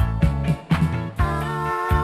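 Pop song music with a steady drum beat under sustained instrumental chords, with a held, wavering melody note in the second half.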